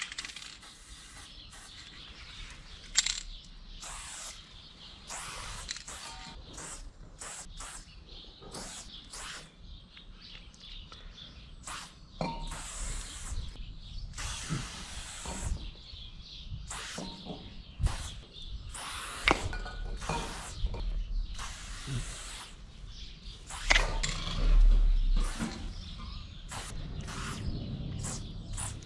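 Aerosol spray-paint can hissing in many short bursts of uneven length as graffiti outline letters are sketched in red, with a few sharp clicks between strokes and a brief low rumble about three quarters through.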